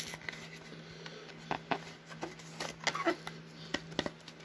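Trading cards and a foil pack wrapper handled by fingers, making scattered soft rustles and light clicks as the cards are worked out of the pack.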